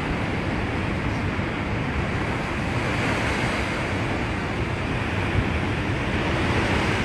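Steady rushing noise with wind buffeting the microphone.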